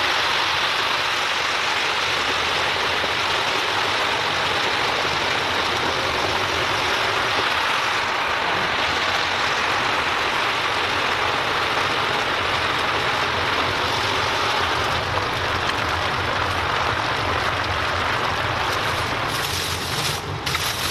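Deep fryer of hot oil sizzling steadily as whole battered chickens fry. Near the end, a few sharp rustles of a plastic liner as raw chickens are handled.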